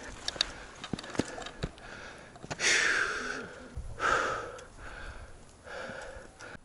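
A hiker breathing hard while climbing a steep rock slab: two loud gasping breaths about two and a half and four seconds in, then softer ones. Sharp taps of footsteps on the rock come in the first two seconds.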